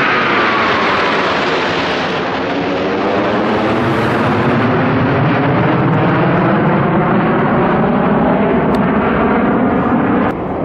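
Jet noise from an RAF Eurofighter Typhoon's twin turbofans as it flies past, a high whine falling in pitch at the start, then a loud steady jet noise that cuts off abruptly just before the end.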